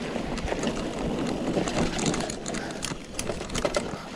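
Mountain bike rattling over rough ground: a steady rushing noise with scattered clicks and knocks.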